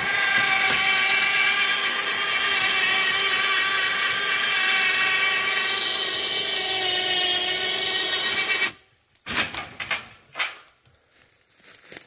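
ATV electric winch motor whining steadily as it winds in its line under load, hoisting a ladder tree stand; the pitch sags a little near the end of the pull. The winch cuts off suddenly about nine seconds in, followed by a few sharp metallic knocks.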